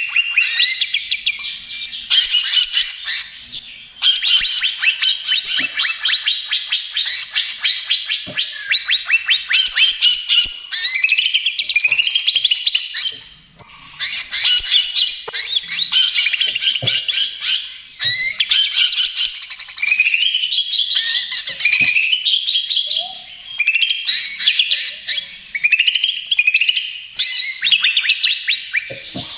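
Cucak ijo (leafbird) singing a loud, fast rattling trill song in phrases of a couple of seconds each, with brief breaks and rising sweeps between them.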